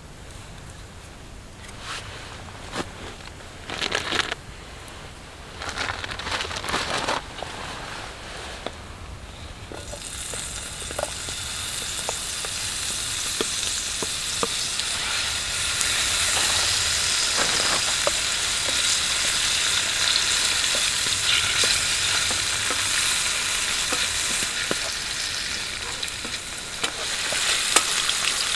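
Meat sizzling in a hot frying pan over campfire coals. The loud sizzle starts suddenly about ten seconds in, as the meat goes into the pan, and runs on with small pops, while a wooden spatula stirs it near the end. Before that there are only a few short handling noises.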